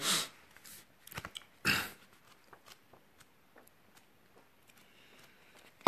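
Small mouth and handling noises close to a phone microphone in a quiet room: scattered faint clicks, a short rush like a breath about two seconds in, and a sharper click near the end.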